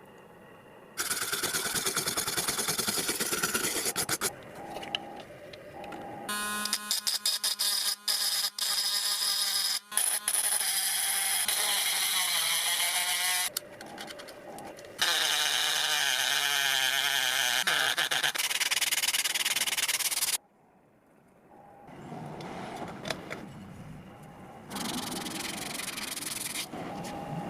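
Workshop restoration sounds: several separate stretches of sanding and rubbing noise that start and stop abruptly, with a power tool whirring at a steady pitch in the middle and one whose pitch slides down later on.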